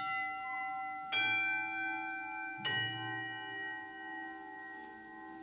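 Bell rung at the elevation of the consecrated host. It is ringing from a strike just before, is struck again about a second in and once more about two and a half seconds in, and each strike rings on with several clear tones that slowly fade.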